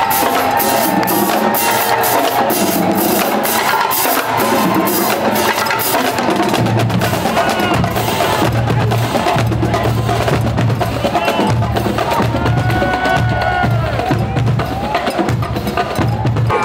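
Marching band drumline playing a steady cadence of snare-drum strokes and rim clicks. From about six seconds in, sousaphones and brass join with low held notes over the drums.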